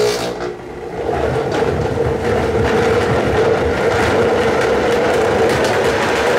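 Countertop blender running, blending greens into a smoothie: it starts on low and gets louder about a second in, then runs steadily at high speed.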